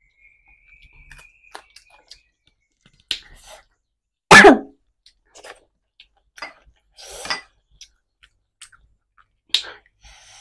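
Close-up mouth sounds of a person eating rice by hand: scattered lip smacks and chewing clicks, broken by one loud cough about four seconds in.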